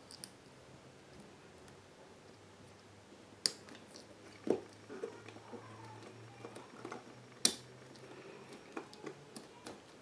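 Faint handling of electrical wires and a Wago three-way lever connector: light taps and rustles, with two sharp plastic clicks about three and a half and seven and a half seconds in.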